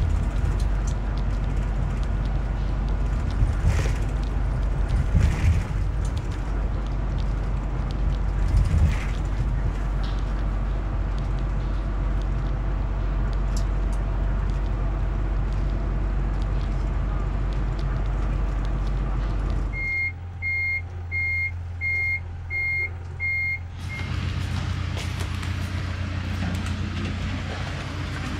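Steady low rumble inside a moving bus, with a few short crackles of a plastic instant-noodle packet being squeezed in the hands. About twenty seconds in the rumble gives way to six short, evenly spaced electronic beeps, like a vehicle's reversing alarm.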